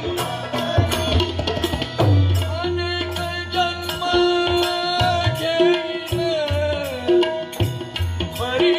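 Instrumental passage of a devotional bhajan: tabla playing a steady pattern, with a deep bass stroke that bends in pitch about two seconds in, under a wavering bamboo flute melody and a harmonium.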